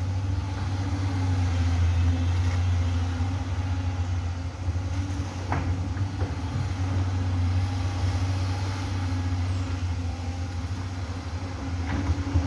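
Amphibious excavator's diesel engine running steadily with a low, even hum, and a couple of faint knocks, one about five seconds in and one near the end.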